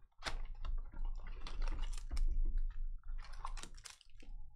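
Plastic shrink wrap crinkling and tearing as a sealed trading-card hobby box is unwrapped and opened, then foil card packs rustling as they are lifted out. A quick, irregular crackle throughout.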